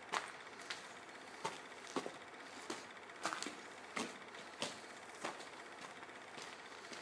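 Footsteps crunching on grit and debris over a concrete floor, at a steady walking pace of about three steps every two seconds.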